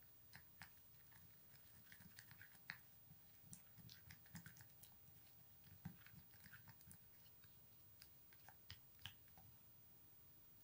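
Plastic spoon stirring a thick, sticky paste in a small glass bowl: faint, irregular wet squelches and light clicks of the spoon against the glass.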